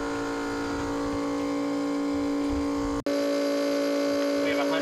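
Steady hum of a small electric fuel transfer pump drawing gasoline from the fuel bladder. It breaks for an instant about three seconds in and carries on at a slightly changed pitch.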